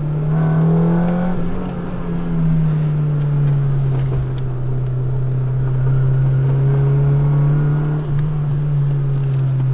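Honda Civic EK4's B16A VTEC four-cylinder engine under way, heard from inside the cabin. The revs rise in the first second, drop back briefly, then climb slowly and steadily, with a short dip near the end.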